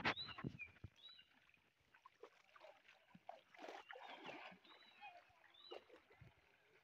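Faint sloshing and swishing of pond water around a man wading and hauling in a cast net, with a few short, high bird chirps.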